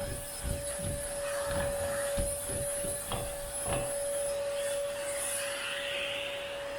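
Vacuum cleaner running with a steady whine while its brush attachment is worked over fabric couch upholstery to lift dog hair, making a run of short rubbing strokes through the first few seconds.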